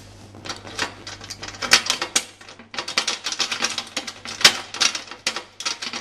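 A double-sided wafer rake scraping and rattling in and out of a mailbox's wafer lock, a rapid uneven stream of metallic clicks as the wafers are raked. It starts about half a second in and pauses briefly midway.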